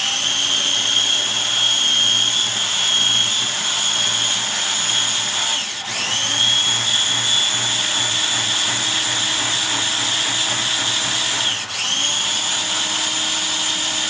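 Cuisinart kitchen appliance's electric motor running at speed with a steady high whine, whipping heavy cream until it thickens. Twice, about six seconds in and again near the end, the motor briefly slows and then spins back up.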